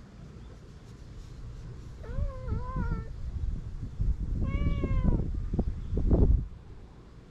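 Brown tabby-and-white cat meowing twice: a wavering call about two seconds in and a longer one that falls slightly in pitch about four and a half seconds in. A low rumble of noise runs underneath, loudest just after the second meow.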